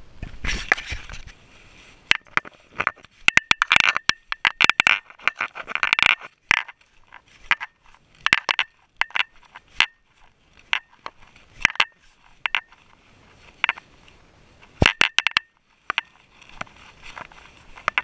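Irregular sharp clicks and knocks from a GoPro camera strapped to a walking cat, the housing and mount rattling with each step, some knocks with a brief metallic ring. Rustling handling noise in the first second.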